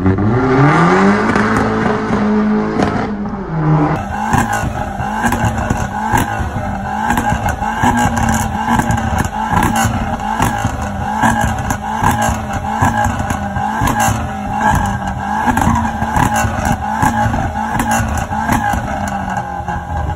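Vauxhall Corsa VXR with a loud exhaust pulling away, its revs climbing for about two seconds and then holding. About four seconds in it gives way to a stationary Corsa VXR held at steady revs while the exhaust pops, crackles and bangs rapidly and shoots flames, the sound of a pop-and-bang tune.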